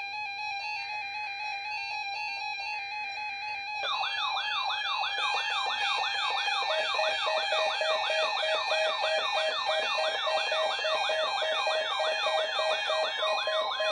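Several weather radios sound their alert alarms together, set off by a Required Weekly Test broadcast. Steady tones and a beeping tone are joined about four seconds in by a fast warbling, siren-like tone of about three sweeps a second, and a few seconds later by a lower pulsing beep.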